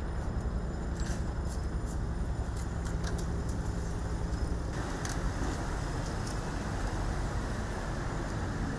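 Steady low rumble of distant road traffic, with a few faint ticks.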